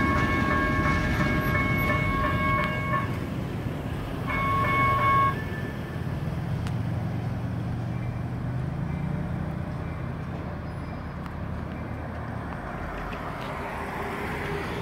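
Train horn: a long blast of about three seconds, then a short blast about a second later, which is the loudest sound. A low freight-train rumble follows and slowly fades.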